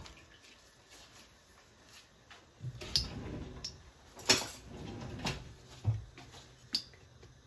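Hot stainless steel wok with oil being swirled on a gas stove: a few light clicks and knocks about a second apart, starting a little before halfway through.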